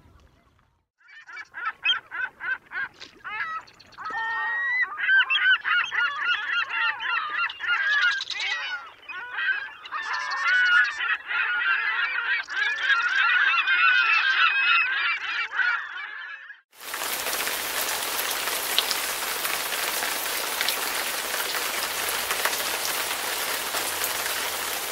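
A flock of geese honking: a few spaced honks at first, then a dense, overlapping chorus of calls. About two-thirds of the way through, the calls cut off abruptly and a steady rushing hiss takes over.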